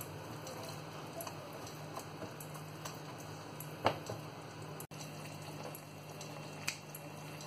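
Onions simmering in liquid in a small saucepan, a soft steady bubbling with faint ticks, as a silicone spatula stirs them. A sharp tap just under four seconds in and a smaller one near the end.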